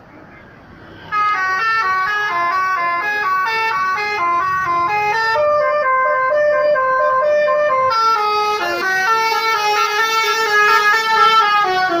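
Basuri musical bus horn playing a fast melody, starting about a second in: a quick run of stepped horn notes, several pitches sounding together.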